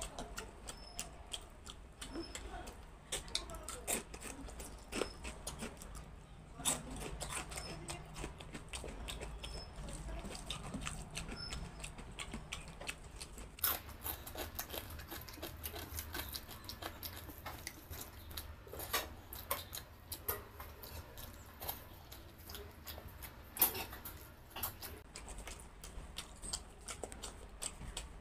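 Close-miked eating sounds of someone eating rice and curries by hand: wet chewing, lip smacks and irregular sharp mouth clicks.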